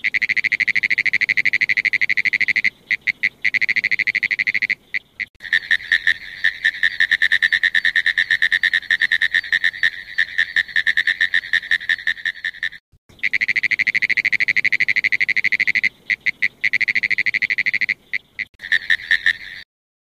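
Recorded call of a pine woods treefrog: long trains of rapid, rattling clicks, broken by a few short gaps and brief choppy stretches.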